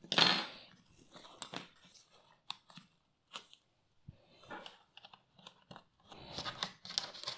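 Laptop bottom cover being pried open with hand pry tools: a short scrape at the start, a few light clicks and ticks of tools on the case and table, then a crackling scrape as a plastic pry tool is worked into the seam near the end.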